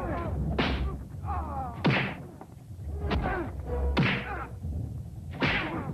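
Movie fight sound effects: punches and kicks landing, heard as a series of about five sharp hits roughly a second apart, each with a short falling tail.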